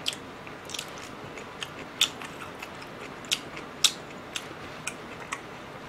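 Close-miked chewing of beef sushi: irregular soft wet mouth clicks and smacks, about eight of them, over a faint steady hiss.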